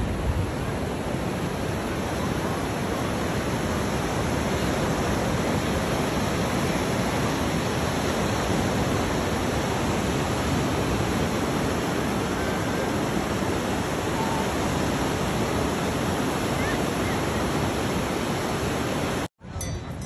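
Ocean surf: a steady rush of breaking waves and shallow water washing over sand, cutting off suddenly near the end.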